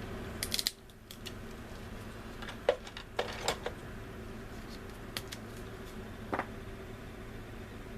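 Scattered light clicks and taps as plastic model-kit parts and small tools are handled on a workbench, a handful of separate clicks over several seconds, over a steady low hum.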